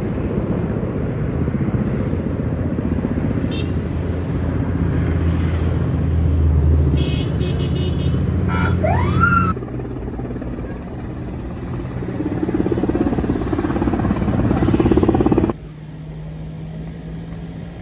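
Steady low engine drone with rumbling wind noise from a firefighting helicopter working over a forest fire. A brief rising whistle sounds about nine seconds in, and the sound changes abruptly about ten seconds in and again near fifteen seconds, ending in a quieter steady hum.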